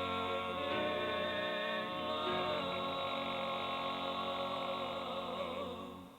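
A gospel vocal group holds the final chord of a hymn, played back from a cassette tape, and the chord fades away about six seconds in.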